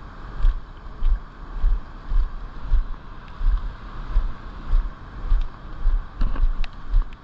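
Steady rush of river water, with regular low thumps about twice a second and a few faint clicks near the end.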